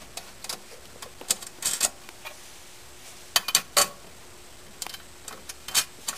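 Scattered metal clicks and clinks of a steel wing bracket and its hex bolts being handled and fitted by hand against a sewing-cabinet lift carriage, with a short clatter about a second and a half in and another near the end.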